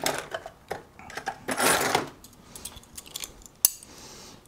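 Small metal parts and hand tools clinking and rattling as they are handled on a wooden workbench, with a louder half-second scrape about halfway through and a single sharp click near the end.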